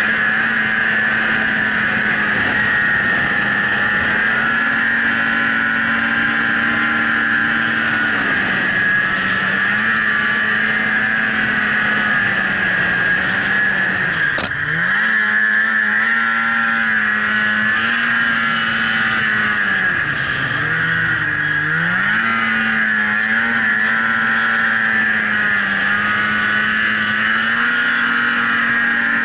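Snowmobile engine running at a steady pace, its pitch dipping and climbing back a few times, most sharply about halfway and again about two-thirds through, as the throttle eases off and comes back on. A single sharp click sounds about halfway through.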